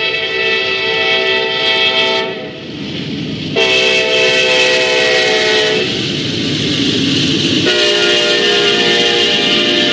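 Locomotive horn sounding three blasts of several notes at once, a chord, over the steady rumble of a passing train. The first blast cuts off about two seconds in, a second long blast follows at about three and a half seconds, and a third starts near eight seconds and is still sounding at the end.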